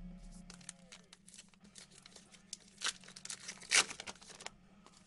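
Trading-card pack wrappers crinkling and tearing as packs are opened and the cards handled: a run of crackles, two of them louder about three and almost four seconds in, that stops shortly before the end.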